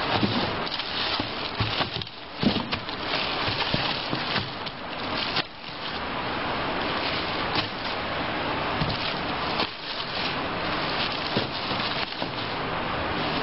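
Plastic wrapping crinkling and rustling as plastic-bagged packages are laid and pressed into a cardboard box, with a few sharper knocks along the way.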